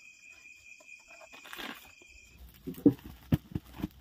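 Night insects, crickets, chirring steadily, with a brief rustle about one and a half seconds in. The chirring stops abruptly about two and a half seconds in, and a few sharp knocks and clunks follow.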